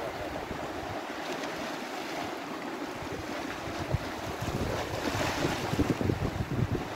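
Sea surf washing over a rocky shore, with wind buffeting the microphone in gusts that grow stronger about halfway through.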